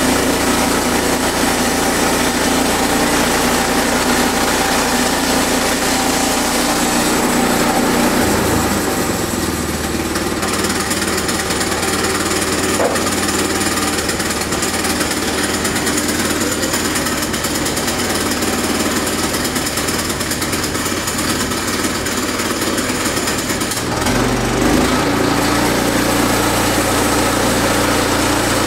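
Sawmill engine running steadily, its note shifting about eight seconds in and again near the end.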